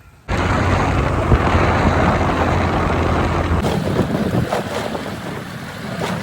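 Wind buffeting the microphone: a loud, steady rush that cuts in abruptly, with a shift in its sound about halfway through.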